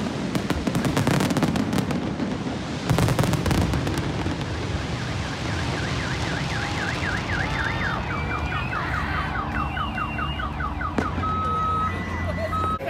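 Fireworks crackling and banging, with one big burst about three seconds in. As they die away, a car alarm starts: fast repeated rising sweeps, then warbling chirps, and near the end a steady high beeping tone.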